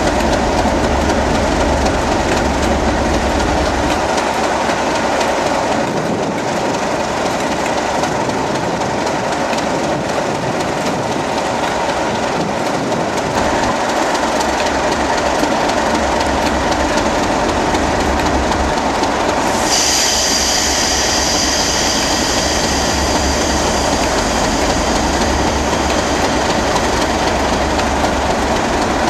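Class 37 diesel locomotive's English Electric V12 engine running loud and steady as it moves off slowly. About two-thirds of the way in a high-pitched steel wheel squeal starts and holds to the end.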